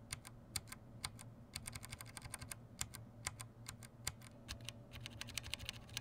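Faint, irregular small plastic clicks and ticks from Gateron Brown mechanical keyboard switches being worked out of a hot-swap board with a wire switch puller.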